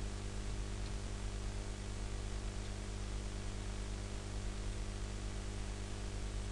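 Steady electrical hum with a layer of hiss: the background noise of the narration microphone's recording chain, with nothing else standing out.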